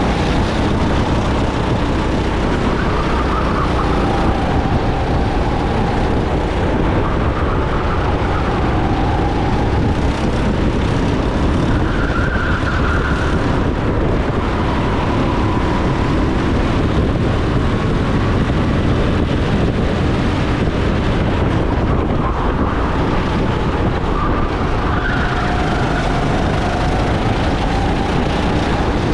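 Go-kart engine at racing speed, its pitch climbing on the straights and dropping into the corners, again and again, over a heavy rush of noise.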